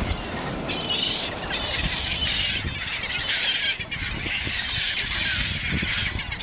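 A flock of gulls calling over and over as they dive for fish, harsh cries overlapping one after another, over a low rumble of wind on the microphone.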